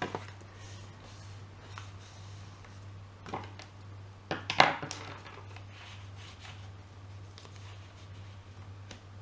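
Card stock being folded and pressed flat on a wooden tabletop: light paper handling noises and a few sharp taps, the loudest about four and a half seconds in, over a steady low hum.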